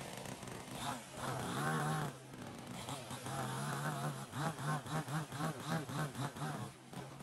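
Small two-stroke chainsaw engine running and revved. The buzz rises and falls, then pulses quickly about four times a second, and cuts off shortly before the end.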